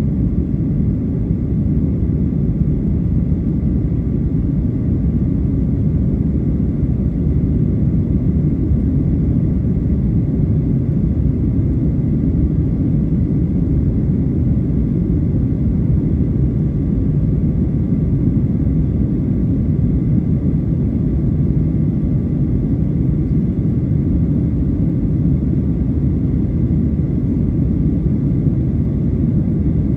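Steady low rumble inside the cabin of a Boeing 737-800 climbing after takeoff: its CFM56-7B jet engines and the rush of air past the fuselage, with a faint steady whine above the rumble.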